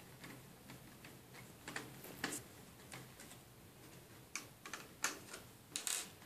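Small screws being undone from a car sat-nav unit's metal casing: irregular light clicks and taps of a screwdriver and metal parts, with a few louder knocks about two seconds in and near the end.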